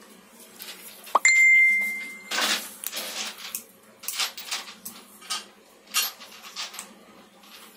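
A bright clink about a second in that rings on for about a second as the cap comes off the glass perfume bottle, followed by a string of short rustles and light knocks from gloved hands handling the bottle.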